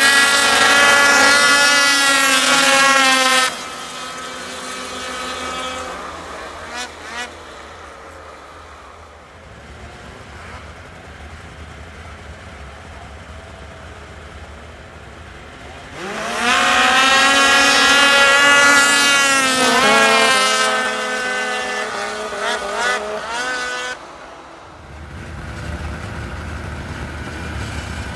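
A row of two-stroke mountain snowmobiles launching together at full throttle in a drag race, their engines rising in pitch and then fading as they pull away. A second heat launches the same way about halfway through. Near the end, sleds idle close by with a steady low hum.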